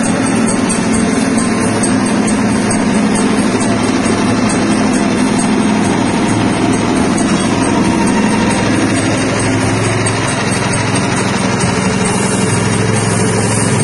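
Soybean splitting and dehulling machine running steadily, driven by a small engine, as soybeans pass through it.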